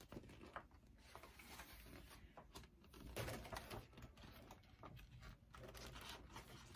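Faint, irregular paper rustling as printed cross-stitch pattern sheets are handled and their pages flipped.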